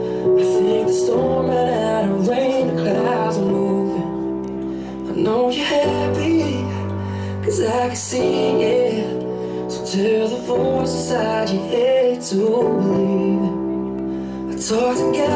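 Pop song playing for a stage dance: a woman singing over bass, guitar and keyboard, with a steady beat.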